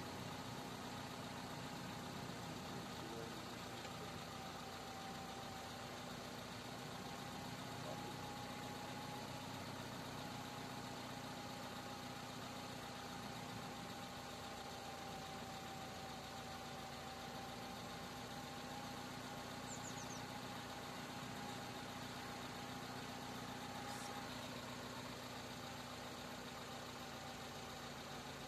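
Light van's engine idling steadily, with a thin steady tone running above it.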